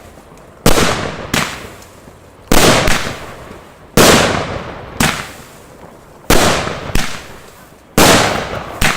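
Fireworks bursting overhead in irregular succession: about eight loud bangs, some coming in quick pairs, each trailing off over about a second.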